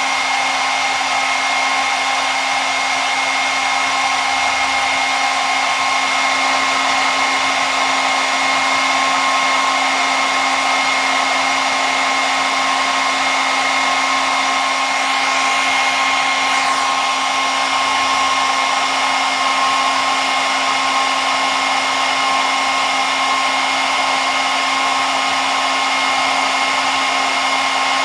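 Hair dryer running steadily on one setting: a constant rush of blown air with a steady hum and whine mixed in.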